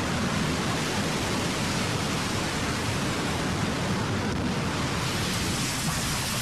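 A steady, loud rushing noise with no pitch or rhythm, spread across low and high sounds alike.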